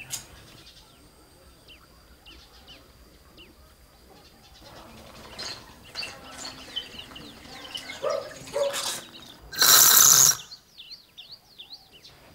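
Small birds chirping repeatedly in short falling notes, with a few scattered knocks. About ten seconds in comes a loud burst of rushing noise lasting under a second.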